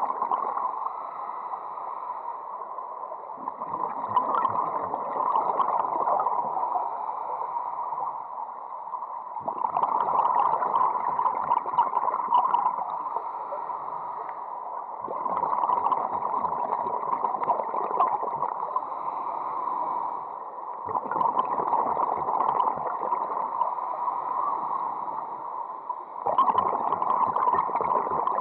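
Underwater scuba breathing: regulator exhaust bubbles gurgling out in regular breaths about every six seconds, with quieter inhalations between them.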